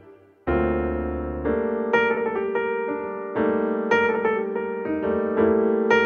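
Background piano music: a pause, a low chord about half a second in, then a steady flow of notes.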